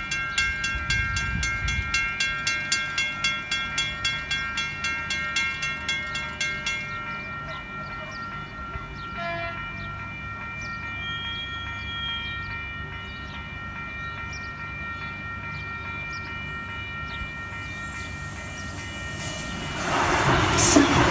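Level crossing warning bells ringing rapidly, about three strikes a second, while the boom gates lower; the ringing stops about seven seconds in. Near the end a Sydney Trains Waratah electric train rushes in over the crossing, with wheel clatter.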